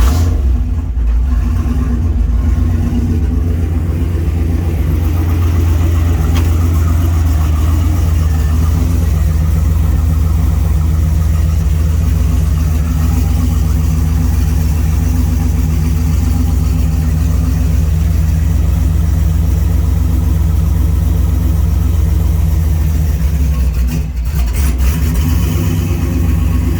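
Turbocharged truck engine with a newly fitted Garrett G42-1200 turbo, running steadily just after its first start-up, with a brief dip in level about 24 seconds in.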